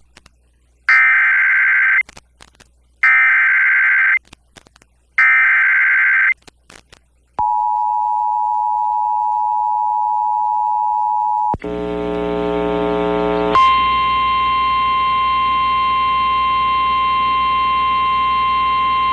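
Emergency Alert System broadcast alert on FM radio: three short bursts of SAME digital header data, then the two-tone EAS attention signal held for about four seconds. A buzzy tone follows for about two seconds and gives way to a steady single tone.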